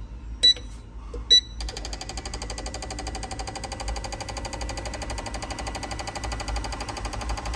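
Fuel injectors from a 1989 Mitsubishi Starion being pulsed on a bench injector tester for a slow-flow test: a steady, rapid, even ticking buzz that starts about a second and a half in. It follows two short beeps, which sound like the tester's controls being set.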